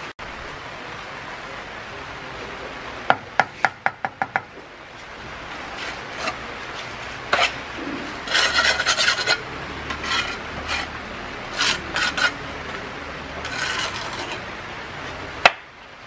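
Mud mortar being scraped and spread on earth blocks in several short rasping bursts through the second half, after a quick run of about seven sharp taps, with one sharp knock near the end.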